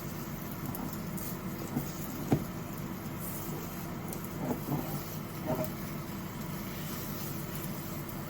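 Kitchen cooking sounds: a steady hum with a few light, soft knocks and clatters of utensils, the sharpest one about two seconds in and a small cluster in the middle.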